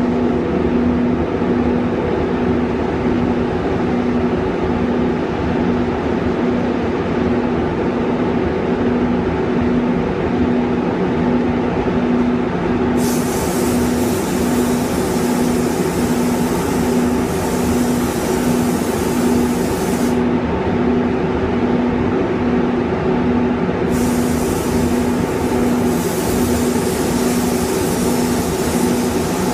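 Spray booth ventilation fans running steadily, with a hum that pulses about twice a second. A high air hiss comes in about 13 seconds in, stops about 7 seconds later, and starts again near the end.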